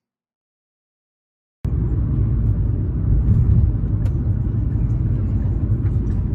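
Silence for about a second and a half, then a steady low rumble starts abruptly, with a few faint clicks over it.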